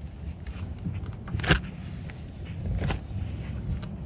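T-handle rasp from a tyre plug kit worked in and out of a puncture in a tyre, scraping the rubber: two short scraping strokes about a second and a half apart, with fainter ticks of the tool, over a steady low background noise.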